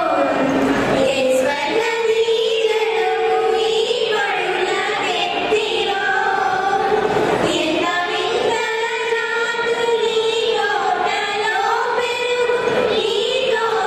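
A group of girls singing a song together into microphones, with long held notes.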